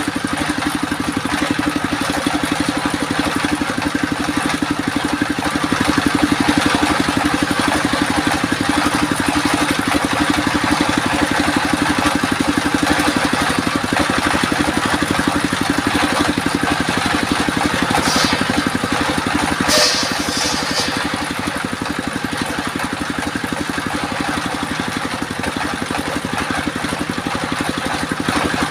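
Homemade circular sawmill machine running steadily with an even, fast engine-like chug. Two brief high-pitched scrapes come about two-thirds of the way through.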